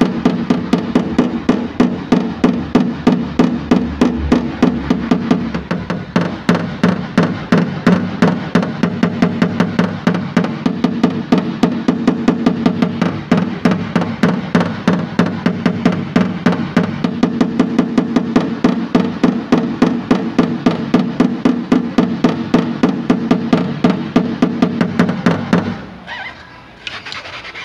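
Paintless dent repair: a hammer tapping a knockdown punch held against a car body panel, fast steady taps with the panel ringing, knocking down high spots as the dent is worked out. The tapping stops abruptly near the end.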